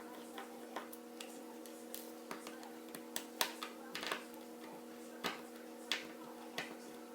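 Small Phillips screwdriver clicking and ticking against the phone's tiny screws and plastic case as the screws are worked loose: irregular sharp clicks about one or two a second, over a steady hum.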